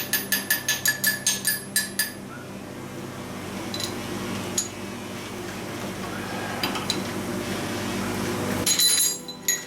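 Milling machine running steadily, with a quick regular run of ringing metallic ticks, about five a second, for the first two seconds. The machine's hum stops near the end, followed by a short clatter of metal clinks.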